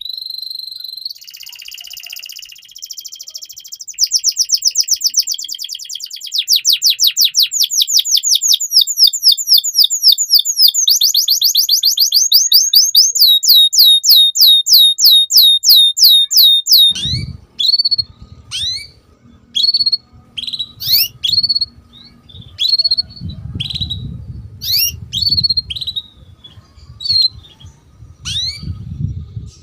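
Domestic canary singing: a buzzy roll, then a long run of rapid, loud, repeated down-sweeping notes. About seventeen seconds in, the song changes abruptly to single sharp chirps roughly one a second over a low background rumble.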